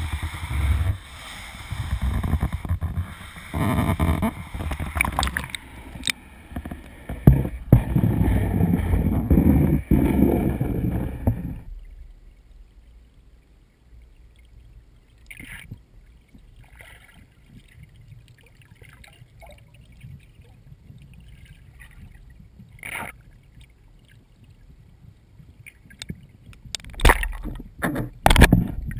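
GoPro camera inside its sealed waterproof housing: loud, muffled, uneven rumble and knocks from handling above the water, cutting off abruptly about twelve seconds in as the camera goes under the pond's surface. Then quiet underwater hum with a few scattered knocks and taps, closer together and louder near the end.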